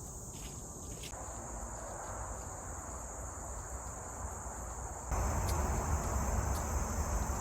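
A steady, high-pitched insect chorus, typical of crickets, fills the woods. About five seconds in, a louder low rushing noise comes in suddenly and stays. A few faint clicks sound along the way.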